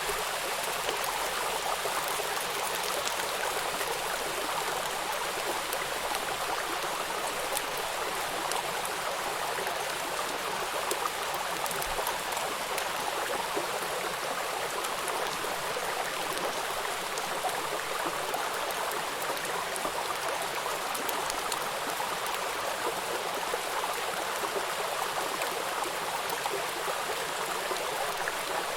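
Steady rain falling: an even, unbroken hiss with a fine patter of individual drops through it.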